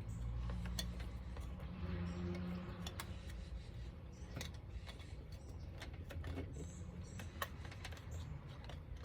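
Scattered light clicks and taps of hand work on doorbell hardware with a screwdriver, irregularly spaced, over a low steady hum.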